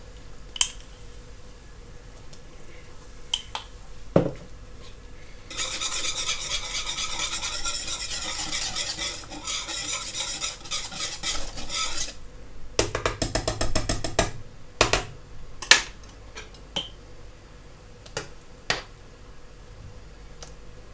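Wire whisk stirring broth fast in a large pot, a dense, even clinking and scraping that lasts about six seconds. It is followed by a quick run of sharp metal taps and a few single clinks of utensils on the pot.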